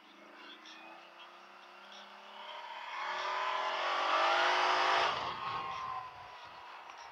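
CFMOTO CForce 1000 ATV's V-twin engine, fitted with an aftermarket exhaust, climbing in pitch and getting louder as the quad accelerates from about two and a half seconds in. The engine falls away suddenly about five seconds in.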